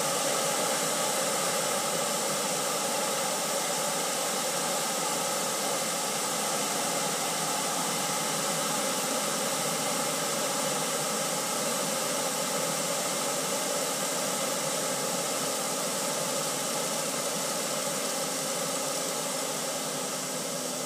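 Air hissing steadily out of a tire through a brass screw-on tire deflator fitted to the valve stem, airing the tire down from about 25 psi toward 20 psi.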